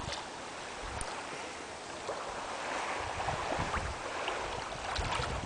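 Shallow sea water sloshing and lapping around people wading, with wind on the microphone making a low rumble that grows near the end. A short click comes right at the start.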